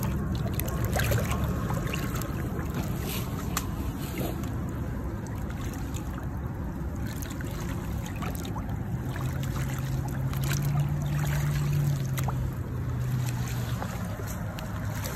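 Shallow river water splashing and sloshing as a large blue catfish is held at the edge and then kicks free and swims off. A low steady hum comes in for a few seconds past the middle.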